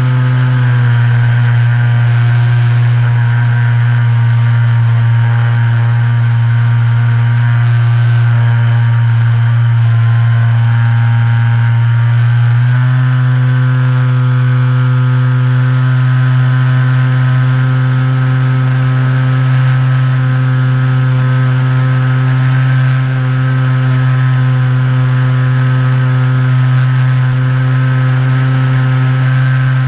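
Electric motor and propeller of a Reely Phönix RC plane, recorded on board, droning steadily in flight; the pitch shifts slightly about a second in and again about 13 seconds in.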